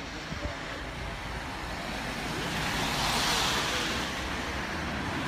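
Road traffic: a passing car's noise swells to a peak about three seconds in and then fades, with more traffic building again near the end.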